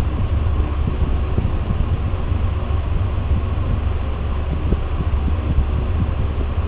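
Fujitec hydraulic passenger lift in motion: a steady low rumble from the hydraulic drive and the car travelling, with no change in level.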